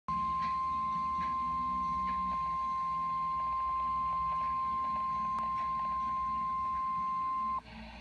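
NOAA Weather Radio warning alarm tone, a single steady high-pitched tone near 1050 Hz played through a Midland weather alert radio's speaker, cutting off shortly before the end. It is the signal that a warning, here a severe thunderstorm warning, is about to be read.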